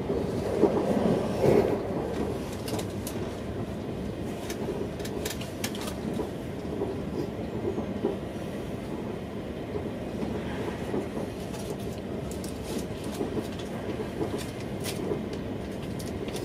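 Rhein-Ruhr Express Siemens Desiro HC electric train heard from inside the carriage while running at speed: a steady rumble of the wheels on the track, scattered with short sharp clicks, louder for a moment between about half a second and two seconds in.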